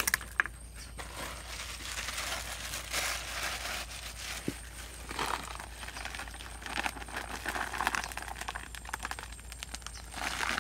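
Plastic packet of coating flour crinkling and rustling as gloved hands handle and open it, with irregular small crackles.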